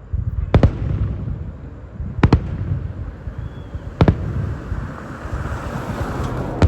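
Aerial fireworks exploding: three sharp bangs, spaced a little under two seconds apart, over a continuous low rumble of shells bursting and echoing. A hissing noise swells in the second half.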